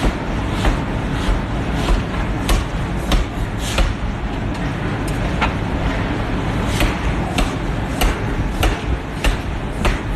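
Forging hammer striking steel in a steady rhythm, about three sharp blows every two seconds, over a continuous low factory rumble. The blows pause briefly about halfway through.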